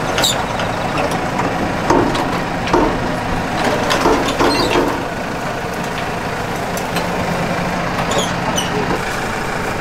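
Tractor engine idling steadily, with a few knocks and clanks as a person steps up and moves about on the metal footboard of the seed drill hitched behind it.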